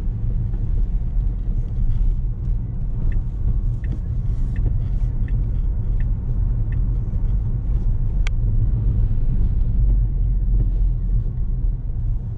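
Steady low road and tyre rumble of a Tesla Model S Plaid, an electric car, cruising at about 100 km/h. A few seconds in come about six light, evenly spaced ticks, a little under a second apart, and a single sharper click follows shortly after.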